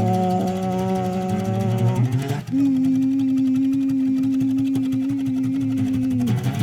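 Live song performance: two long, steady held notes, the second one higher and starting about two and a half seconds in.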